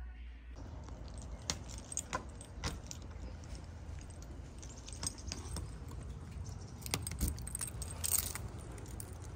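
A bunch of keys jangling and clicking as a door is locked. Sharp metallic clicks come at irregular moments, with a busier jingle near the end.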